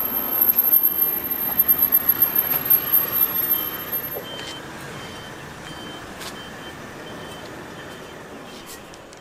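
Street traffic noise, with a vehicle's reversing beeper sounding a short high beep about every two-thirds of a second from a few seconds in. The whole sound fades gradually.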